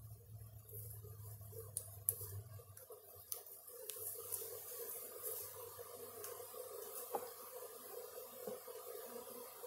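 Faint steady buzzing of a small honeybee swarm flying around a swarm box, with a few light clicks and knocks about two to four seconds in. A low hum fades out about three seconds in.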